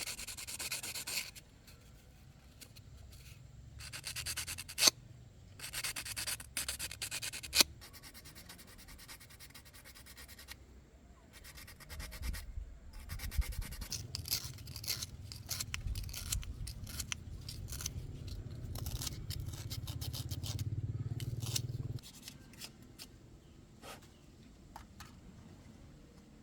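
Scraping, rubbing and clicking of hand work on parts, broken up by pauses, with two sharp clicks in the first eight seconds. A low hum runs under the work for about ten seconds in the second half and stops abruptly.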